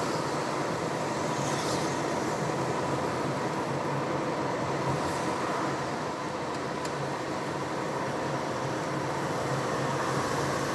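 Car driving along a road, heard from inside the cabin: a steady drone of engine and tyre noise.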